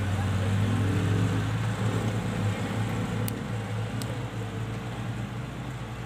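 Kubota DC-105X combine harvester's diesel engine running steadily as the machine crawls along on its tracks, a low hum that eases off slightly after the first couple of seconds.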